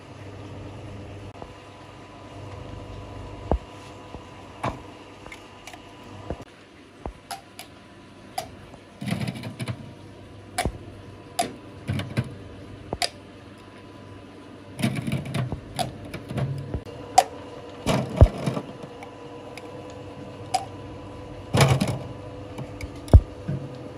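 Hard plastic PET preforms clicking and clattering as they are pushed onto the spindles of a rotating preform heater, in irregular knocks with a few louder clusters. A steady machine hum runs underneath.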